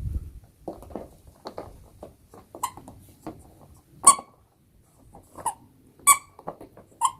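Squeaky sound-ball toy giving short, sharp squeaks of the same pitch, five of them spread over several seconds with the loudest in the middle, and fainter taps and scuffs between them as the toy is knocked about.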